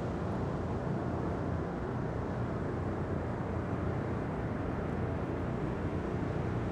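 Steady low rush of ocean surf, with a few faint crackles from a fire.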